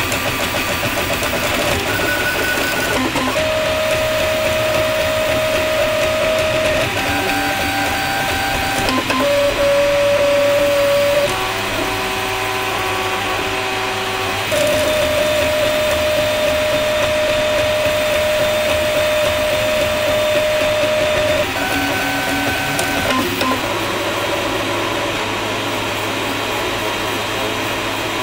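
Atomic U300 3D printer printing, its stepper motors whining in held tones that jump to new pitches every few seconds as the print head changes moves, over a steady machine hum.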